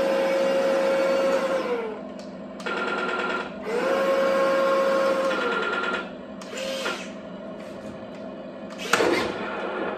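Small electric gearmotors of a 1/16 Tongde M60A3 RC tank whining as the turret traverses and the gun barrel elevates, in runs of a second or two that each rise in and fall away, twice long and once briefly, with a buzzier run between. A sharp knock near the end.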